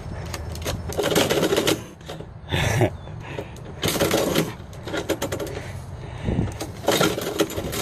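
Metal door mail-slot flap clacking and paper rustling as envelopes are pushed in through the slot and shoved back out by a cat. There are bursts of clacks about a second in, around four seconds and again around seven seconds.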